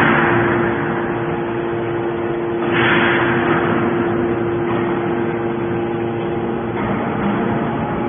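250-ton hydraulic metal scrap baler running: a steady hum from its hydraulic power unit, with a rushing hiss that swells about three seconds in and again faintly near the end, as the ram presses out a bale of metal turnings.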